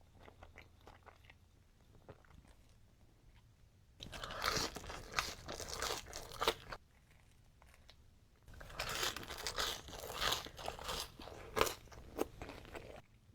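Close-miked mukbang eating: a person biting and chewing crunchy food, in two spells of loud crunching after a few quieter seconds of faint mouth clicks.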